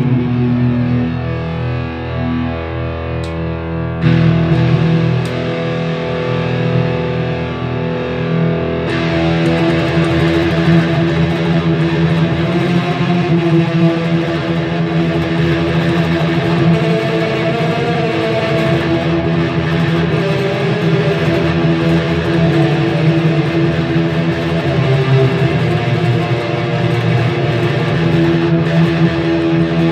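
Electric guitar played through a Little River Customs Stranger Things fuzz-delay pedal, into the clean channel of a Randall RH150 head and a Fender Metal Head cabinet, with long sustained notes and fuzzy repeats. The tone brightens about four seconds in and again a few seconds later, as the pedal's knobs are adjusted.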